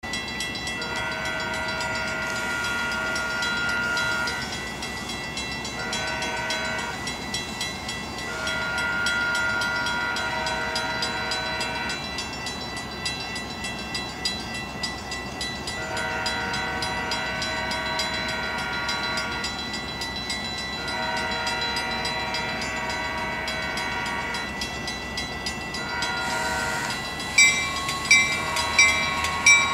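Horn of an approaching Metra commuter train's cab car sounding six blasts, most of them long and a few short, with rail noise underneath. Near the end a bell starts ringing steadily, a little over once a second.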